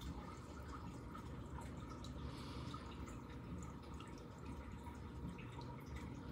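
Water moving in a 50-gallon reef aquarium: steady trickling with many small drips and splashes over a low hum.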